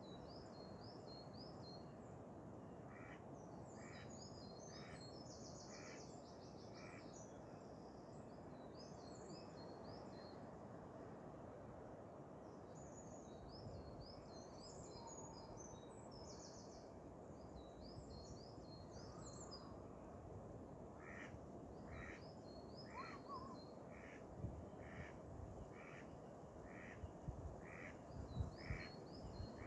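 Faint birdsong over a quiet steady background: high twittering phrases repeat on and off, and a run of evenly spaced calls, about one a second, comes briefly early on and again through the last third. A few soft low thumps come near the end.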